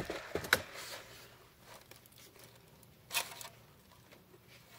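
Paper sandwich wrapper crinkling and rustling in a few short bursts: a couple of sharp ones in the first half-second and another about three seconds in.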